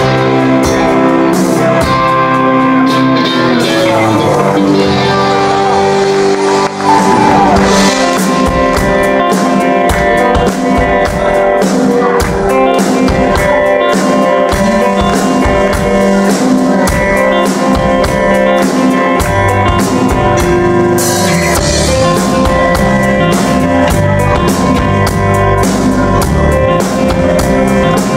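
Live rock band playing loud: electric guitars, bass guitar and drum kit. The bass and low drums come in heavier about two-thirds of the way through.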